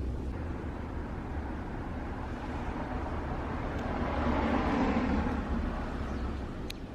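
A steady low rumble with a rushing noise that swells and fades about halfway through, with a faint click near the end.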